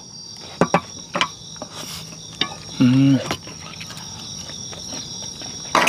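Crickets chirping steadily, with a few sharp clicks of chopsticks and tableware and a short vocal murmur from one of the diners about three seconds in.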